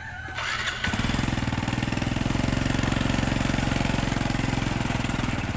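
A small engine running steadily with an even, rapid beat, starting about a second in.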